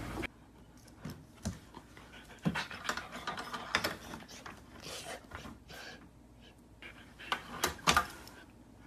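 A dog panting, with a few sharp clicks and knocks between the breaths.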